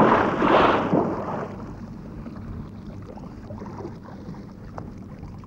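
A sudden loud rush of noise that swells twice and fades over about a second and a half, leaving a low steady hiss with a few faint ticks.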